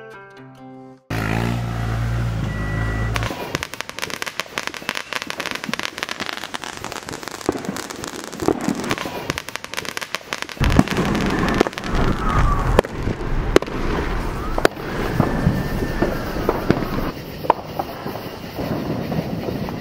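Dense, rapid crackling and popping that starts suddenly about a second in. It carries a few whistling glides, and a heavy low rumble partway through.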